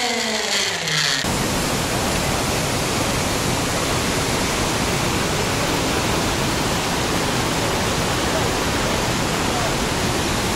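A waterfall's steady rush of water, starting abruptly about a second in.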